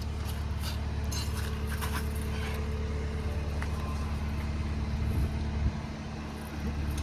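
A vehicle engine running at a steady idle, with a few light clicks over it and a short dip in level about six seconds in.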